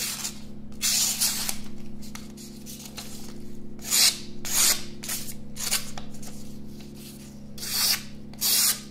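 Ganzo G728 folding knife blade slicing thin advertising paper in several short cutting strokes, each a brief papery swish. The blade cuts cleanly: the edge is sharp.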